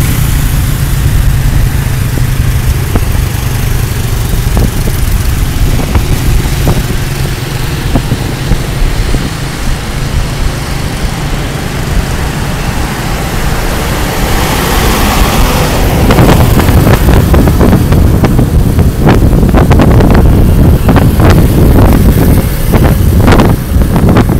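A moving motor scooter's engine and road noise, heard from the bike in light traffic, with wind buffeting the microphone. The noise grows louder and the buffeting gustier over the last third.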